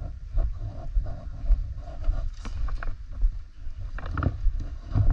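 Footsteps and gear movement of a player walking with a worn camera: low thuds on the microphone about twice a second, with a few sharp clicks or knocks past the middle and near the end.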